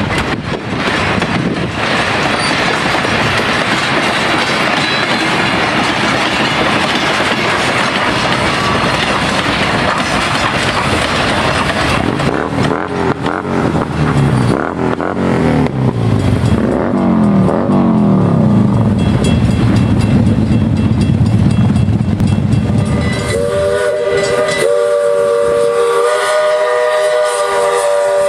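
A steam excursion train passing close: the cars' wheels clatter over the rail joints, then steam locomotive No. 110 rumbles by. About five seconds before the end, its three-chime steam whistle sounds a long, steady chord.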